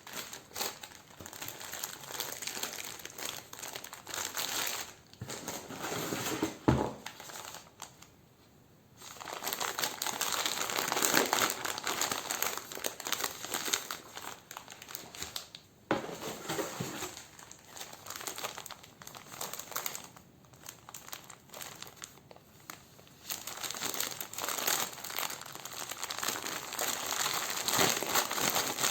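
Parcel packaging being handled and unwrapped: crinkling and rustling in stretches, broken by short pauses, with one sharp knock about seven seconds in.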